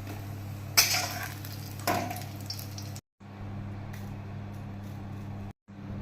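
Food frying in oil in a pan with a steady sizzle. A metal spatula knocks against the pan twice, about a second apart, and the sound cuts out briefly twice near the middle and end.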